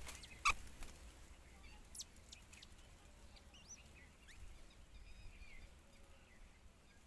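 Faint, scattered bird chirps and short whistled notes, some gliding down in pitch, with a sharp click about half a second in.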